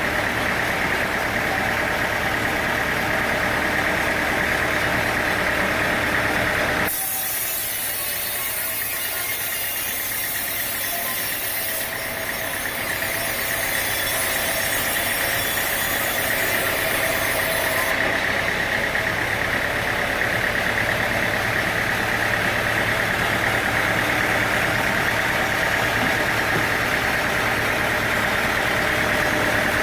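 Sawmill machinery running steadily with an engine-like drone. About seven seconds in the sound switches abruptly to a thinner, hissier noise with less low end, and it returns to the steady running sound around eighteen seconds in.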